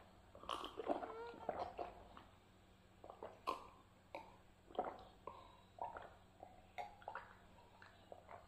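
Close-miked gulping and swallowing of water from a glass: a long run of gulps, about one to two a second, with wet gurgles in the throat.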